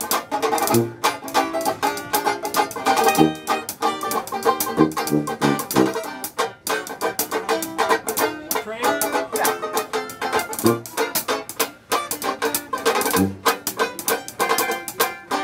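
Dixieland band playing a tune, with a banjo strumming quick chords over low bass notes.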